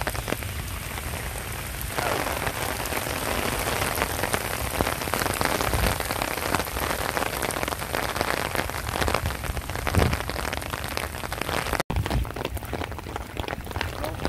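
Heavy rain pouring down, a dense patter of drops striking hard surfaces. It grows louder about two seconds in, cuts out for an instant near the end, then carries on softer.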